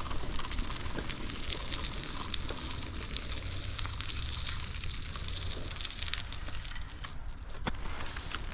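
Bicycle tyres rolling on a rough path, a steady crackling crunch with many small ticks, over a low rumble.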